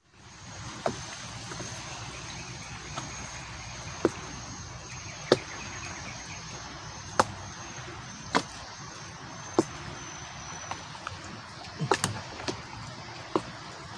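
Outdoor ambience by a river: a steady high insect trill over a faint hiss, which stops about eleven seconds in, with sharp single clicks or taps every second or so.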